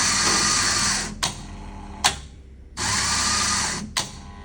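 Coffee vending machine's grinder motor running to grind a test dose, with a faint whine; it stops about a second in, two sharp clicks follow, then the motor runs again for about a second and another click comes near the end.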